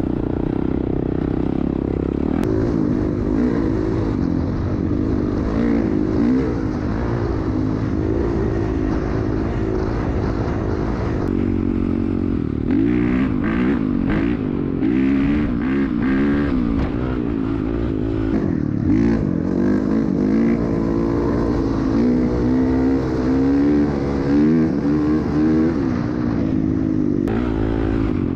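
Dirt bike engine running hard while riding, its pitch rising and falling again and again as the throttle is worked and gears change.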